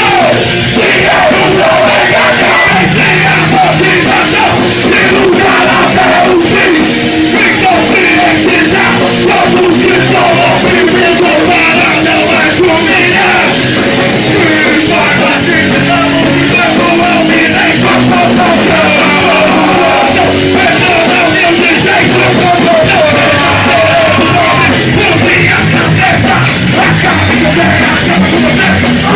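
Punk rock band playing live at full volume, with shouted vocals over a dense, steady wall of band sound, recorded from inside the crowd.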